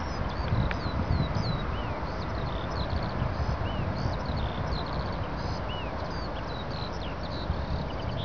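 Boeing 747's four jet engines at takeoff thrust: a steady, deep roar heard from behind as the jet rolls away down the runway. Small birds chirp over it throughout.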